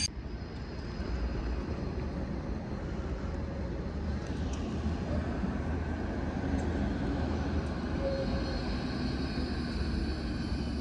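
Steady outdoor city ambience: a low, even rumble of distant traffic and vehicles, with no distinct events standing out.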